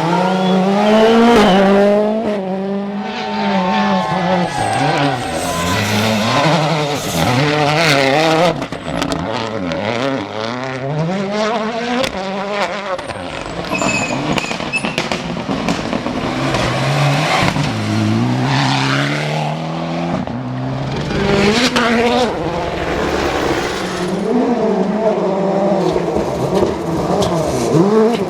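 Rally cars at full attack on a special stage: engines revving hard, the pitch climbing and dropping again and again through gear changes and lifts off the throttle, as car after car goes by.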